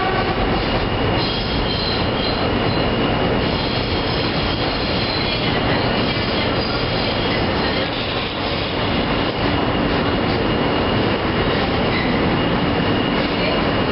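R160 subway car running between stations, heard from inside the car: a steady loud rumble and rattle of wheels on track, with a thin high tone held through it.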